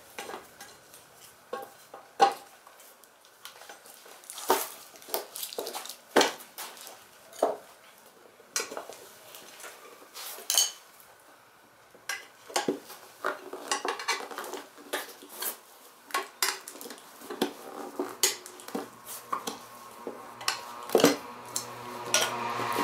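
Tyre levers and other metal tools clinking and knocking against a scooter wheel rim while a tyre is worked onto it by hand, in irregular sharp taps. A steadier hum builds near the end.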